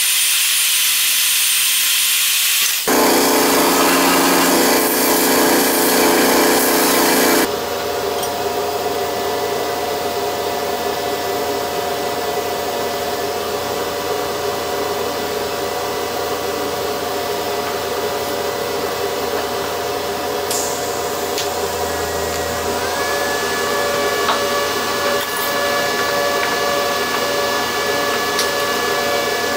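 Milwaukee portable band saw cutting stainless steel tubing, followed by steady power-tool motor noise. The sound changes abruptly about three seconds in and again at about seven seconds; after that it stays steady, with a few held tones.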